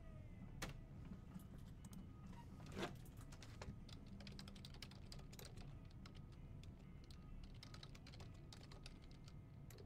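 Faint typing on a computer keyboard: irregular key clicks throughout, with two louder clicks, one about half a second in and one near three seconds. A faint low hum runs underneath.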